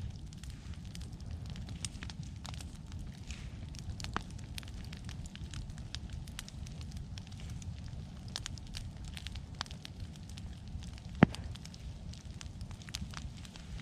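Open wood fire of freshly cut pine and brush burning, crackling with frequent sharp pops over a steady low rumble. One pop near the end is much louder than the rest.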